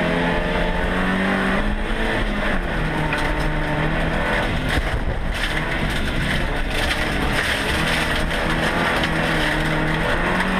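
Race car engine heard from inside the stripped cabin, revving hard, its pitch rising and falling with throttle and gear changes, over steady tyre and surface noise.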